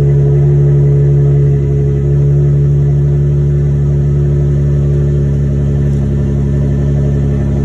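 Car engine idling steadily through a newly fitted exhaust system, a loud, even, deep drone.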